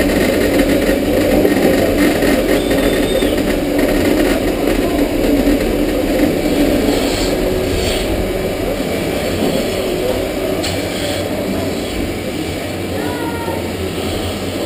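Milking parlour machinery running steadily: the vacuum pump and milking units make a continuous low hum and rush. A few short hisses come through as teat cups are put on.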